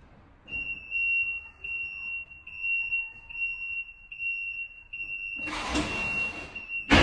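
A high-pitched electronic beep held in long pulses with short gaps, a little more than once a second, like an alarm. About five and a half seconds in, a hissing rush joins it, and it ends with a sharp, loud click.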